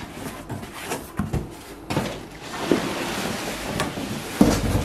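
Plastic wrapping rustling and a cardboard box being handled as a heavy wrapped item is lifted out, with a few knocks and a dull thump near the end.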